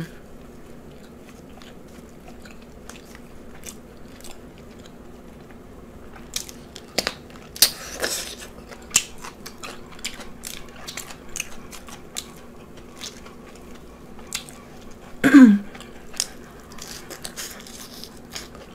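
Close-miked eating: chewing with crisp bites and crunches, heaviest a third of the way in. About two-thirds through, a short loud voiced sound falls in pitch.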